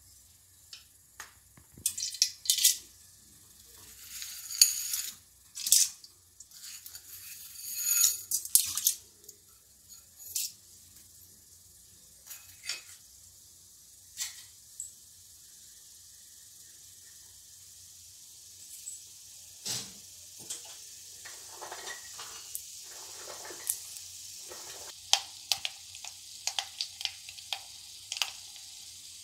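Hot oil in an iron kadai crackling, with scattered sharp pops and spits in the first ten seconds. Once mustard seeds and urad dal are in, a frying sizzle builds steadily, and the mustard seeds begin popping quickly and repeatedly near the end.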